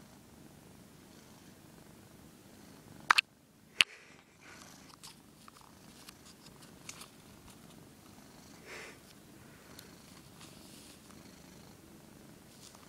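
Domestic cat purring steadily close to the microphone, with two loud sharp clicks about three to four seconds in.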